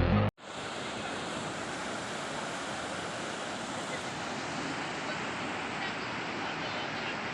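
Steady rush of flowing river water. Background music cuts off just before it.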